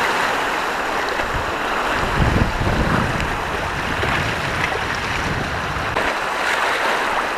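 Sea surf washing steadily on the shore, an even hiss of water, with a low rumble of wind on the microphone swelling about two to three seconds in.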